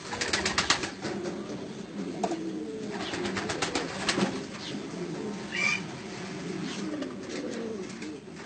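Domestic pigeon cooing in low, continuous rolling coos. Rapid runs of sharp clicks come in the first second and again around three to four seconds in, and there is a short higher-pitched squeak a little past halfway.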